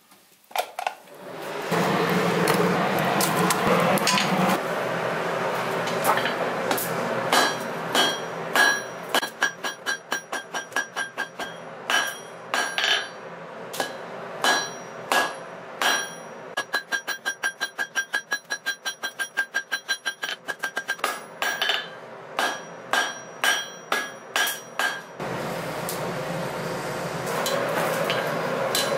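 A 2-pound 10-ounce cross-peen hammer forging red-hot steel on an anvil: many sharp blows that ring after each strike, some spaced out and some in quick runs of about four a second. A steady rush of air from the forge's blower is heard before the hammering starts and again near the end.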